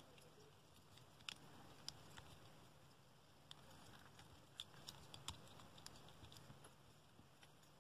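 Faint, irregular small plastic clicks and ticks, a dozen or so, from the joints and parts of a Transformers Core-class Dinobot Scarr figure being turned and snapped into place as it is transformed by hand.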